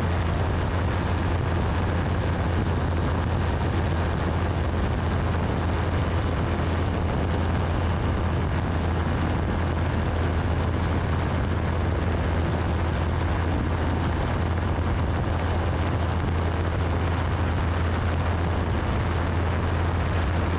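Single-seat FlightStar ultralight's engine and propeller running steadily in flight: a constant low drone under a steady hiss, with no change in power.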